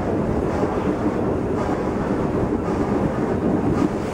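FS Gr. 625 steam locomotive and its train rolling slowly along a station platform, heard under steady wind rumble on the microphone.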